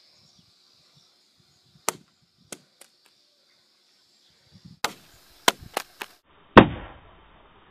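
A phone in a ballistic protective case hitting concrete after a 10-foot drop: one hard impact about two-thirds of the way through, the loudest sound, with a short ring-out. A few sharp clicks and knocks come before it.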